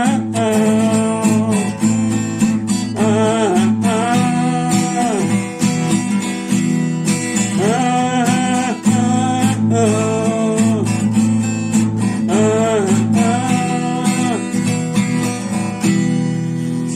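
Instrumental break in a song: strummed acoustic guitar with a melodic lead line above it, repeating in short phrases.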